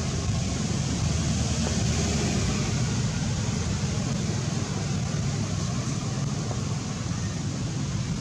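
Steady low rumbling noise with a hiss above it, unchanging throughout.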